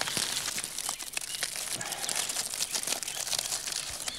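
Dry wrapping crackling and rustling as it is twisted by hand around elephant food parcels of boiled wheat and salt, a dense run of small crinkling clicks.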